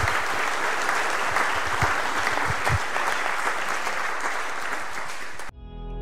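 Audience applauding steadily. Near the end it cuts off abruptly and music with plucked, ringing notes begins.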